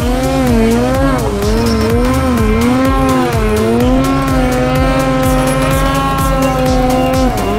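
Arctic Cat snowmobile's two-stroke engine running at high revs, its pitch dipping and rising with the throttle and falling away near the end. Electronic music plays underneath.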